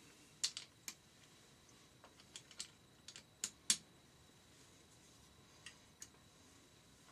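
Irregular sharp clicks and light taps, about a dozen, from hand tools and small engine parts being handled while the cam chain tensioner's Allen bolts are undone on a Yamaha XT600 engine.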